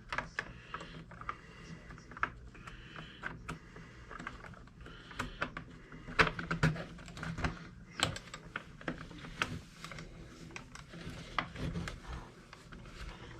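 Small metal and plastic parts of an RC truck's axle and hub assembly being handled: irregular sharp clicks and taps, busiest about six to eight seconds in.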